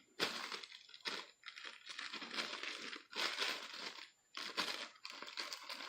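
Crinkling and rustling of the packaging of a NATO watch strap being handled and unwrapped, in irregular bursts with brief pauses.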